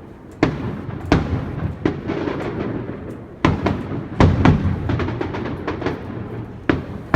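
Aerial fireworks shells bursting: several sharp booms spread across a few seconds, each trailing off into a rolling rumble.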